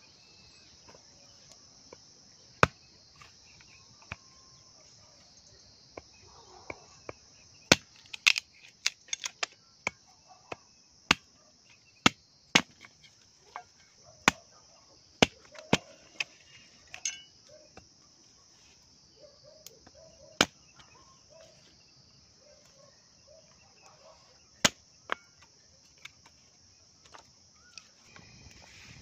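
Knife being batoned through small sticks on a log stump to split kindling: irregular sharp knocks of wood on wood and steel, thickest around the middle, over a steady high drone of insects.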